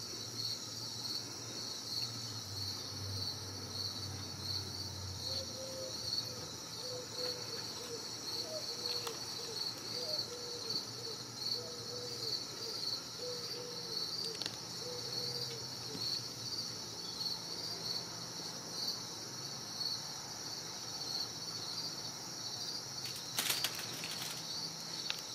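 Cricket chirping steadily, about two high chirps a second. A brief clatter comes near the end.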